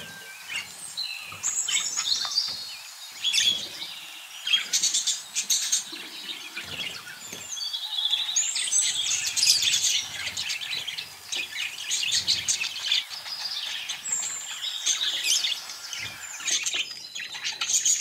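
A flock of budgerigars chattering, with many overlapping high chirps and warbles.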